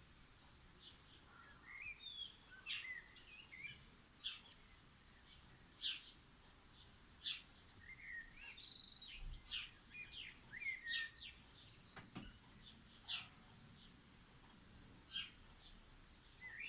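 Garden songbirds chirping and calling: short, high chirps and brief trills scattered throughout, fairly faint. A single sharp click about twelve seconds in.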